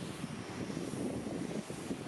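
Jet airliner engine noise: a steady, rushing rumble, strongest low down, with no clear pitch.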